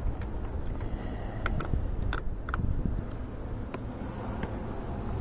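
Several sharp metallic clicks, a pair about a second and a half in and another pair about a second later, as a test light's alligator ground clip is moved onto a different bolt, over a low steady rumble.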